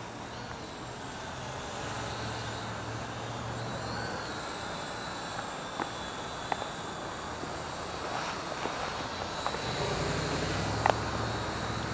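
Steady wind rushing over the microphone, with the Syma X8W quadcopter's propellers whining faintly as it flies, its pitch wavering slightly. A few light clicks occur late on.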